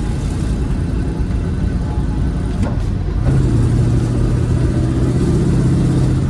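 Rover SD1 Vitesse's 3.5-litre V8 running on the road with road noise, heard from inside the car. About three seconds in, the engine note comes up into a steady, louder drone as it pulls.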